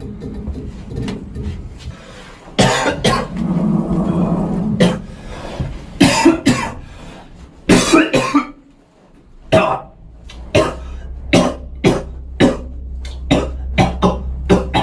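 A person coughing hard in several loud fits, with drawn-out throaty stretches between them. From about ten seconds in, a steady rhythmic beat of sharp hits, about two a second over a low hum, starts underneath.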